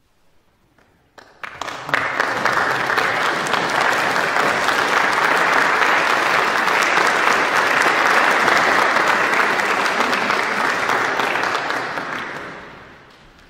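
Audience applauding: a few first claps about a second in, then full, steady clapping that fades away near the end.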